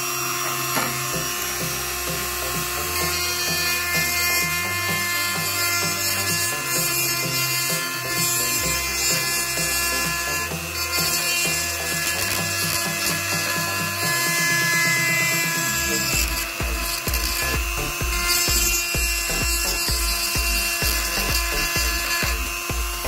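Background music, bass notes changing every second or two and then a steady beat from about two-thirds of the way in. Under it, a Gamma mini rotary tool runs steadily, its bit grinding a groove into a 3 mm acrylic sheet.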